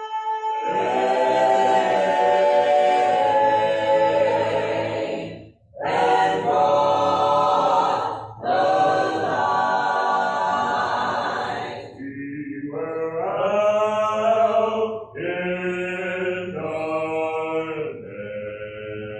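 An a cappella gospel choir singing long held phrases without instruments, breaking off briefly about five and a half seconds in and again near eight seconds.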